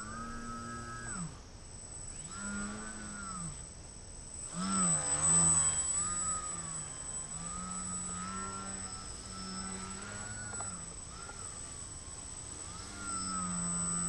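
Brushless electric motor and propeller of a small 3D foam RC plane (SunnySky 2204 1800kv) running, its pitch rising and falling with the throttle. It drops out briefly twice in the first few seconds. About five seconds in, the pitch warbles rapidly and the sound is at its loudest. Then it settles into a steadier drone with smaller swells.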